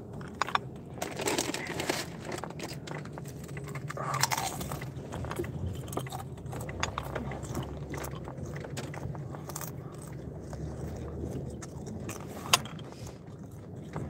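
Potato chips being crunched and chewed close to the microphone: irregular crunches and clicks over a low steady hum, with one sharp click near the end.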